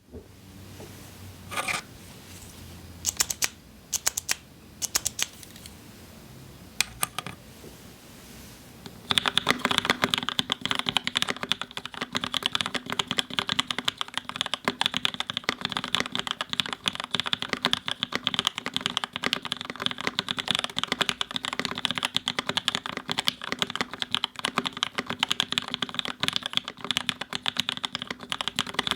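Prototypist J-01 custom mechanical keyboard with Gateron Lion linear switches, a carbon fibre plate and GMK keycaps: a few separate keystrokes, then from about nine seconds in, fast continuous typing.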